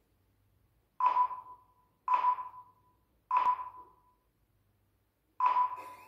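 AEG RX9 robot vacuum cleaner sounding four short ping tones after its button is pressed, each fading away; the first three come about a second apart and the last after a longer pause, just before its motor starts.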